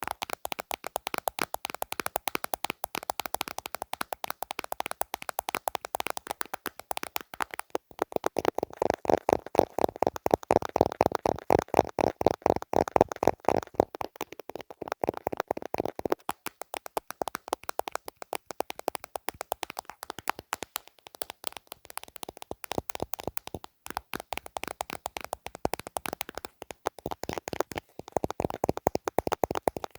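Rapid ASMR tapping on a hard device body (a camera or a plastic phone case), many quick taps a second without pause. The taps grow louder and fuller from about 8 s to 16 s in, then lighten again.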